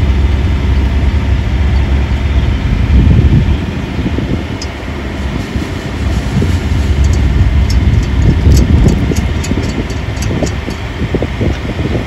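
Steady low rumble of road traffic passing close by, with a few light clicks from lug nuts being threaded onto the wheel studs by hand.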